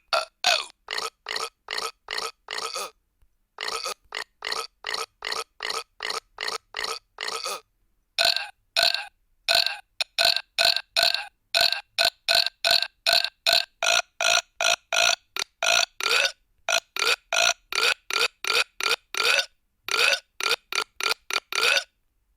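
Burp sound effects: a rapid train of short burps, about three a second, all of a similar pitch, broken by brief pauses a little after three seconds and just before eight seconds.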